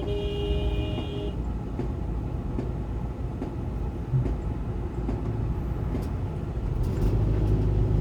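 City road traffic: a steady low rumble of engines and tyres, with a vehicle horn sounding for about a second at the start.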